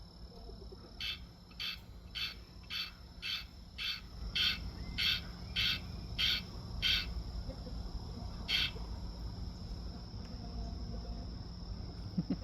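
A frog calling with a string of about a dozen short, evenly spaced calls, roughly one every half second, then a pause and one more call. Under the calls runs a steady high-pitched drone of crickets or other night insects.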